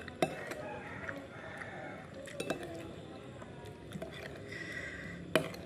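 Metal spoon clinking and scraping against a ceramic bowl while eating, with a few sharp clinks: one just after the start, a pair about two and a half seconds in, and one near the end.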